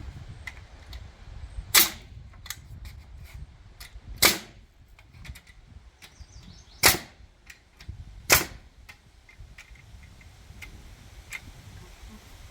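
Hammer blows during demolition of a wood-framed building: four loud, sharp strikes a couple of seconds apart, with lighter knocks and clicks in between.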